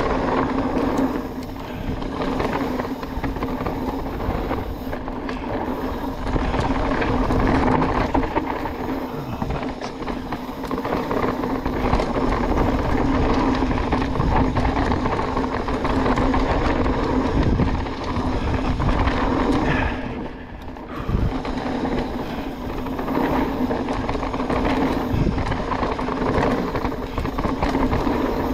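Mountain bike riding fast down a dirt trail: a steady rush of tyre noise, drivetrain and frame rattle, and wind on the camera microphone. The noise drops away briefly about two-thirds of the way through, then returns with a thump.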